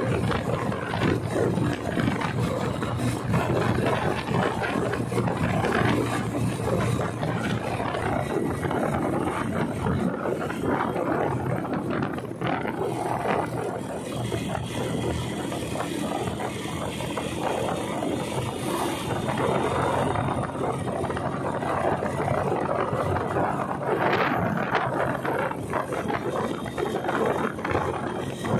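Motorcycle riding along a highway at cruising speed: a steady engine hum mixed with dense wind and road noise.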